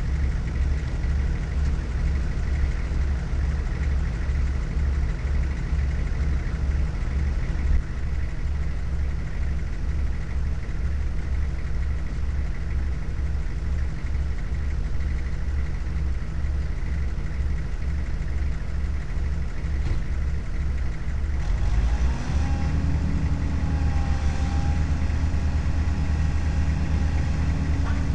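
Truck's diesel engine idling, heard from inside the cab: a steady, pulsing low hum. About three-quarters of the way through, the sound changes to a smoother, slightly higher-pitched hum and stays there.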